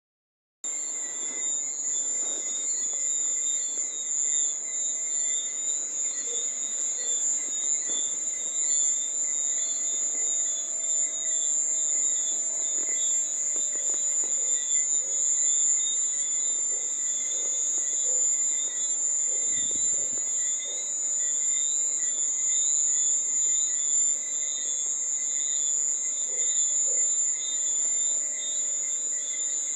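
Cricket chirping: a steady, high-pitched trill that keeps going without a break.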